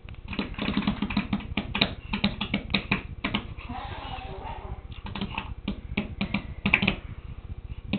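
Rapid, irregular sharp taps, several a second, with a brief faint child's voice about four seconds in.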